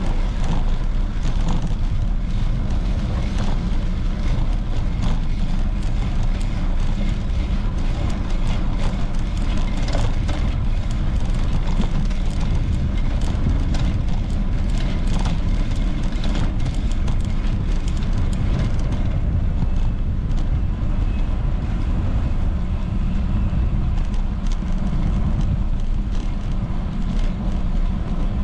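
Wind rumbling on the camera microphone while riding a bicycle, with frequent small clicks and rattles that thin out about two-thirds of the way through.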